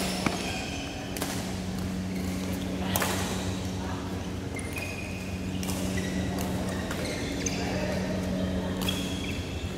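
Badminton play on an indoor court: sharp cracks of rackets hitting the shuttlecock, a few seconds apart, with short high squeaks of sports shoes on the court floor, over a steady low hum.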